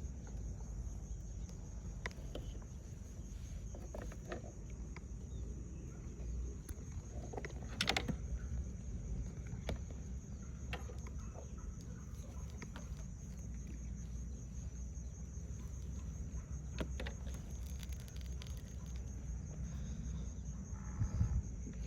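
Outdoor ambience: a steady high chirring of insects over a low rumble, with scattered clicks and knocks, the loudest about a third of the way in. Near the end a rooster crows in the distance.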